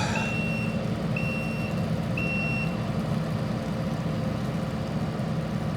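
Vehicle backup alarm beeping three times, about once a second, then stopping, over a steady engine running.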